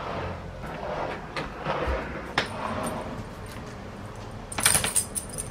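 Clothes rustling as laundry is handled, then a brief metallic jingle about four and a half seconds in from a dog's collar tags.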